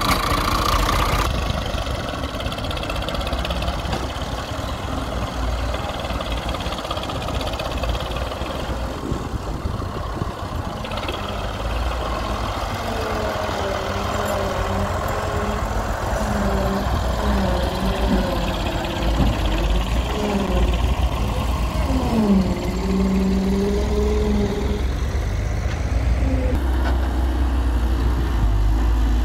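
Diesel farm tractor engine running, its pitch wavering and dipping, then rising again a little past the middle as the revs change.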